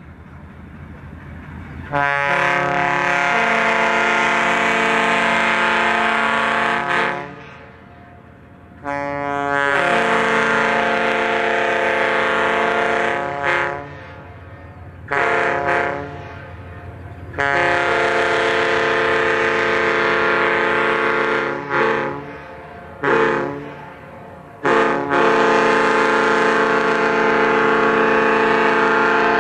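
Large multi-note air horn sounding a chord in long and short blasts: two long, one short, one long, then two quick shorts and another long blast.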